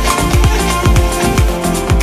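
Background electronic dance music with a steady beat of deep bass drum hits that fall quickly in pitch.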